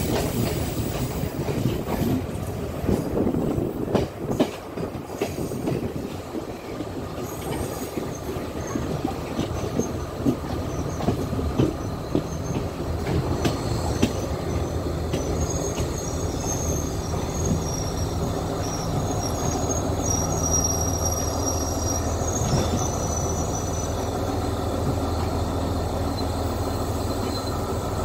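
Sri Lankan passenger train rolling slowly through a rail yard, heard from on board: wheels clicking over rail joints in the first half, then thin high wheel squeal in the second half as it slows, over a steady low hum.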